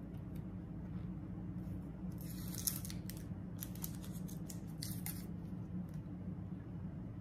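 Three short, crisp rasps as an onion is worked by hand with a kitchen knife, its ends cut off and its papery skin pulled away, over a steady low hum.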